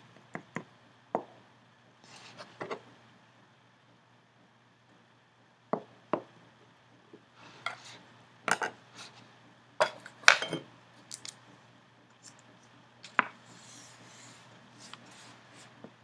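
Irregular sharp clicks and light knocks of a metal-nibbed dip pen and an ink bottle being handled and set down on a table, with faint scratching between them. The knocks bunch together in the middle, the loudest about ten seconds in.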